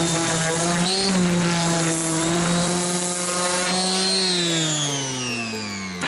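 Electric power tool cutting out an opening in aluminium sheet, its motor running with a steady whine. The pitch drops gradually over the last two seconds as the motor slows.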